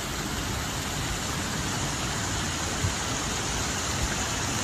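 Heavy rain falling in a storm, a steady dense hiss.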